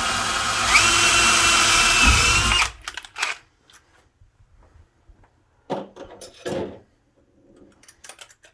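Cordless drill with a 1/4 inch bit drilling into a wooden door jamb, running at a steady whine for about two and a half seconds and then stopping. A few sharp clicks and handling knocks follow.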